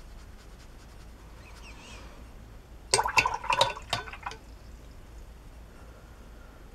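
Watercolour brush swished in a water jar to rinse it: a burst of small splashes and clicks of the brush against the jar, starting about three seconds in and lasting just over a second. Before it, a faint brush stroke across the paper.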